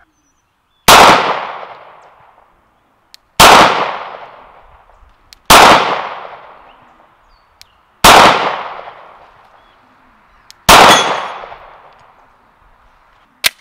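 Five pistol shots from a 9mm Glock 19 Gen 5, fired slowly about two to three seconds apart, each followed by a long echoing decay. A short sharp click comes near the end.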